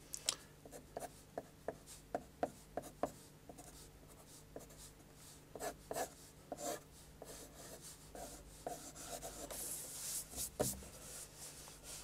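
Pencil lead scratching on paper in a series of short, quick strokes as lines are sketched freehand, with a longer stretch of scratching around nine to ten seconds in.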